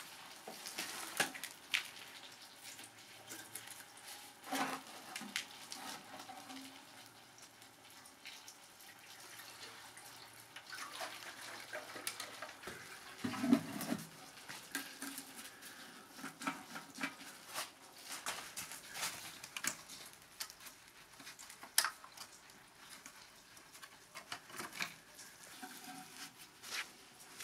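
Scattered clicks, taps and knocks of a rusty steel motorcycle fuel tank being handled: lifted off the frame, set down into a plastic tub with a louder knock about halfway through, and its locking filler cap worked with a key near the end.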